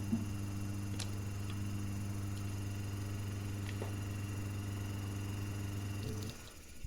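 Cooling fan's AC motor running with a steady electrical hum and a few light clicks, switching off about six seconds in.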